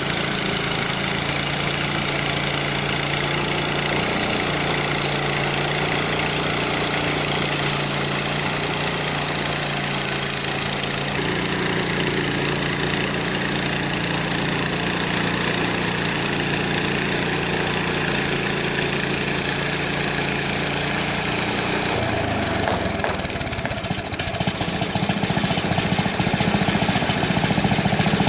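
Frontier OS23 portable sawmill's engine, fitted with a new muffler, running steadily; about 22 seconds in its pitch shifts and it grows a little louder.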